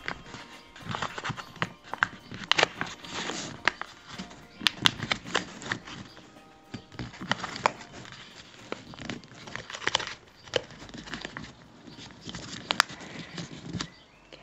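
Brown paper from a grocery bag crinkling and crackling as it is folded and pressed by hand around the top of a small bottle, in a run of irregular sharp crackles.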